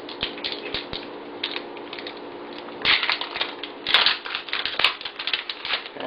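Hershey chocolate bar's paper and foil wrapper being crinkled and torn open by hand: rapid crackling and rustling, sparse at first, then denser and louder from about halfway.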